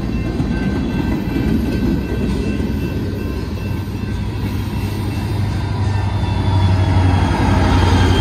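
Freight train cars rolling past close by, wheels running over the rails in a steady loud rumble. A diesel locomotive's engine hum grows louder over the last few seconds as it draws level.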